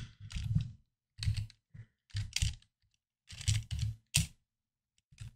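Computer keyboard typing: several short bursts of keystrokes separated by pauses, as a few characters are entered into a text editor.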